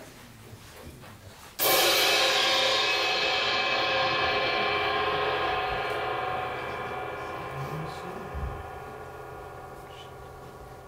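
A single stroke on a large metal percussion instrument, cymbal or gong type: a sudden crash about a second and a half in that rings on with many overtones and slowly dies away over the following seconds.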